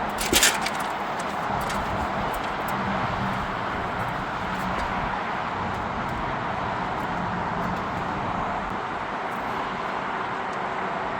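Steady mechanical or traffic-like noise, with one short, loud burst about half a second in.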